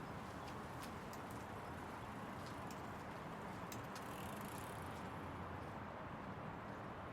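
City street ambience: a steady wash of distant traffic noise, with scattered light clicks and taps over it.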